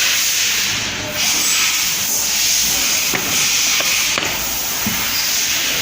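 Welding machine for roller-blind fabric hissing steadily, like rushing air, with a short dip about a second in and a few faint clicks.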